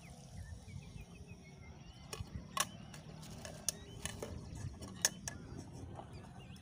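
Cooking gear being handled: a scattering of sharp clicks and knocks from utensils and a cooking pot, loudest about two and a half and five seconds in.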